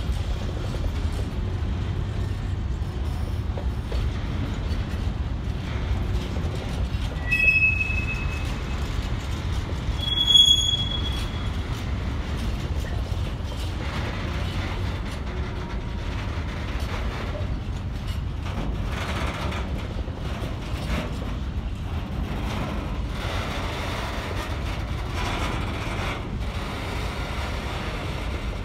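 Freight train wagons rolling past at a steady pace: a continuous low rumble of steel wheels on rail. There are two brief high wheel squeals, about seven and ten seconds in, the second being the loudest moment. In the second half come faint repeated knocks of wheels over rail joints.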